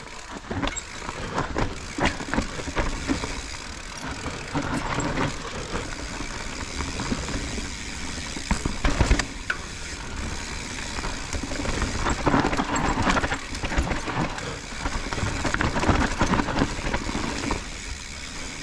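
Mountain bike riding down a dirt forest trail: tyres rolling over packed earth, roots and dry leaves, with the bike rattling and knocking over bumps. The hardest jolts come about nine seconds in and again around twelve and sixteen seconds.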